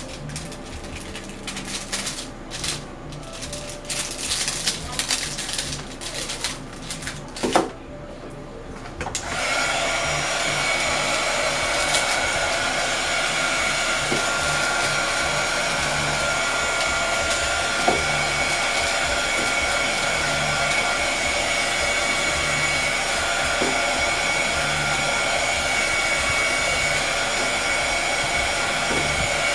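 Rustling and crinkling of a plastic shrink-wrap bag being handled. About nine seconds in, a heat gun switches on and runs steadily, a loud blowing with a thin high whine.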